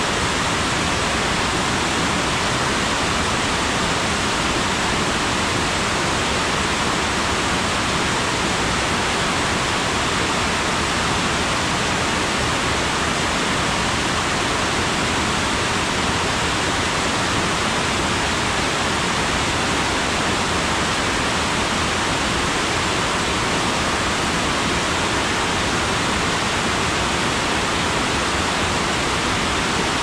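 Water pouring over a dam's overflow weir and cascading down over rocks: a steady, unbroken rush of white water.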